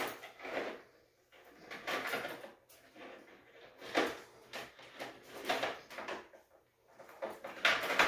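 Steel trap chain and a large steel split ring clinking and rattling as the ring is pried open and rotated onto the chain by hand, in short irregular bursts.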